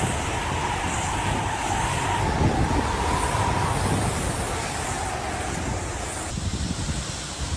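Hurricane wind blowing hard: a steady rushing noise with a faint wavering whistle that fades out about six seconds in, the rush tapering off near the end.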